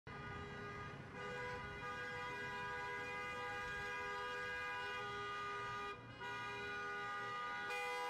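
Several car horns blaring at once, held in one long overlapping chorus of steady tones, with a short break about six seconds in.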